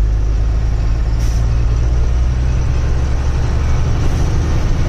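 Truck engine running steadily while the truck is under way, a continuous low drone.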